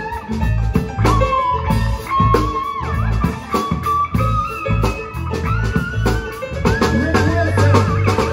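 Live blues-rock band playing: a drum kit keeps a steady beat under electric guitar and bass, with a lead line of sliding, bending notes on top.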